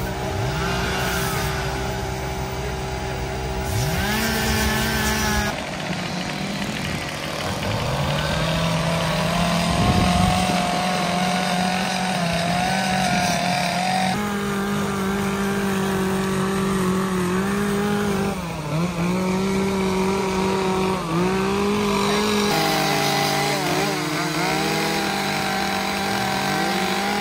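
Petrol chainsaws running and revving as carvers work wood, more than one at a time, the engine pitch dipping and climbing back up again and again. The mix shifts abruptly a few times.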